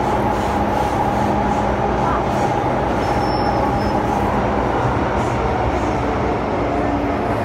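Subway train running, heard from inside the passenger carriage: a steady rumble with a constant tone above it.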